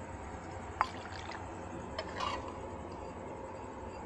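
Warm, thickened milk being poured from a bowl into an earthenware pot over a little starter curd to set doi (curd), with a few light clicks.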